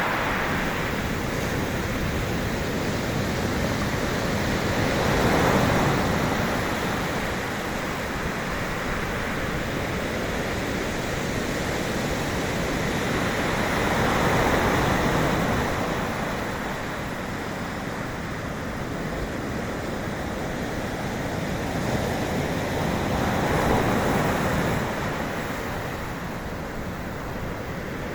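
Sea waves in steady surf, a constant wash of water that swells three times, about nine seconds apart, as waves break.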